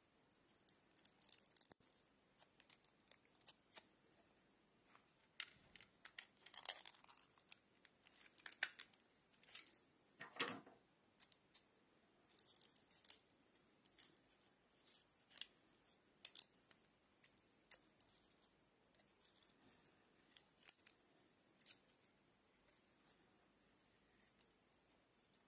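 Faint, irregular crinkling and scratchy ticks from the foil shield and wire braid of a coaxial cable as fingers peel them back and unwind the strands.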